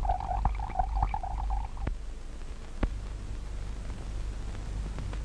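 Liquid glugging out of a glass decanter into a small glass, stopping after about a second and a half. Then only the steady hum and hiss of an old film soundtrack, with a couple of sharp clicks.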